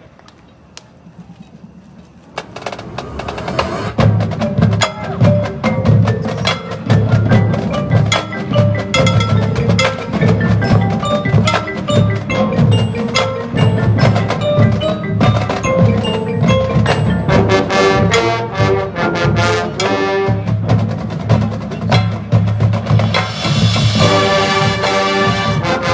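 Marching band percussion section playing: front-ensemble mallet instruments (marimba, xylophone, glockenspiel, chimes) over a steady low drum pulse, fading in after a brief hush about two seconds in. Near the end the full band with brass comes in.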